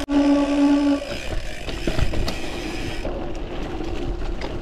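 Bicycle rear-hub freewheel buzzing steadily while coasting for about a second. It then gives way to tyres rolling over a dirt and gravel track, with small clicks and rattles from the bike.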